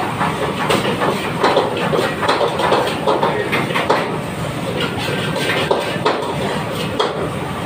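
Commercial kitchen clatter: pots, pans and utensils knocking repeatedly over a steady background noise.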